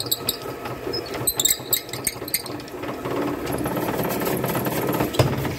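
Lathe running while a drill bit in a hand-held drill chuck bores an 11/32-inch hole into a spinning blank, with scratchy squeaks from the cutting bit for the first couple of seconds. The lathe then runs on steadily as the bit is backed out to clear the shavings, and there is a sharp click near the end.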